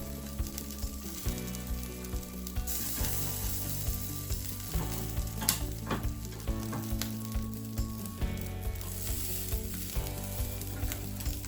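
Salted Pacific saury grilling, its skin and fat sizzling and crackling steadily with frequent small pops.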